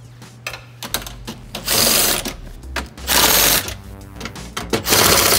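A power tool fitted with a custom-machined socket, running in three short bursts of about half a second each as it spins out the bolts on a Tesla Model 3's high-voltage battery penthouse cover.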